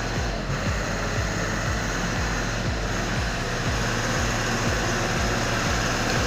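Heavy vehicle engine running steadily with a noisy rumble and irregular low thumps.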